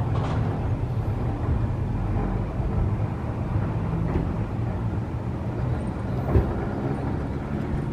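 Hakone Tozan cable car running away up the incline, its steel wheels rumbling steadily on the rails under cable haulage, with a single sharp knock about six seconds in.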